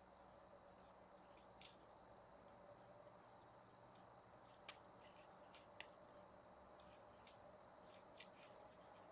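Near silence with a faint steady high-pitched whine and a few soft clicks.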